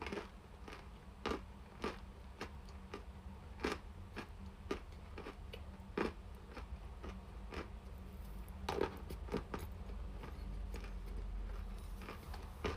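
Sticks of chalk being bitten and chewed, with irregular sharp crunches about once or twice a second; the loudest crunches come about nine seconds in.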